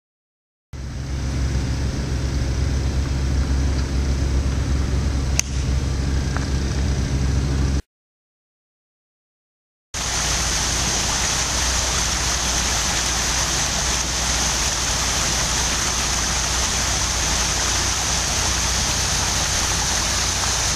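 Golf iron striking the ball with a single sharp click about five seconds in, over steady low rumbling background noise. The sound cuts out for about two seconds, then only an even hiss continues.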